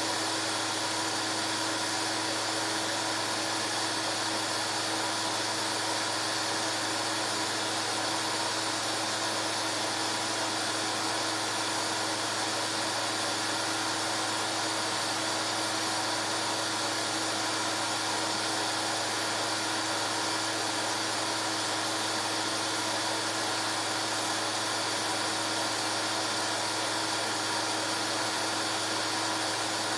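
Steady whir of a running film projector's motor and fan, with a constant low hum and no change in level.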